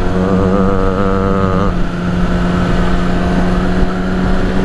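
Motorcycle engine running at a steady, fairly high speed on the road, with wind rush on the microphone. For about a second near the start, a wavering higher engine tone rides over it.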